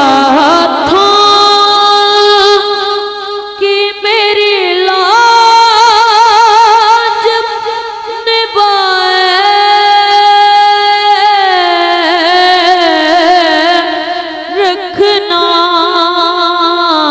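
A boy singing a naat into a microphone: a high solo voice holding long, drawn-out notes with strong vibrato, sliding slowly between pitches.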